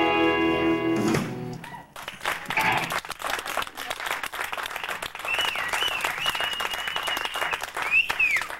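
A garage rock band's last chord on electric guitars rings out and cuts off about a second in. A small crowd then claps and cheers, with a long wavering whistle in the second half and a sharp rising-and-falling whistle near the end.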